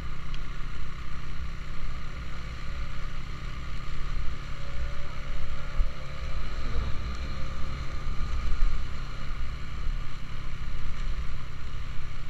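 Motorcycle running steadily at road speed, a low engine drone mixed with wind rushing over the microphone.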